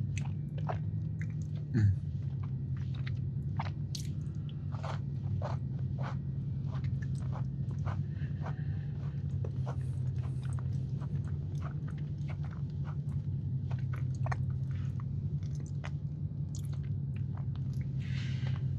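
A person chewing and biting a semi-sweet chocolate chunk cookie, with scattered short mouth clicks and smacks over a steady low hum. A single low thump about two seconds in.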